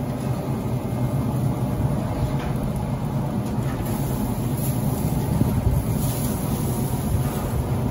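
Weber SmokeFire pellet grill running hot with the lid open: a steady low hum from its fan and fire.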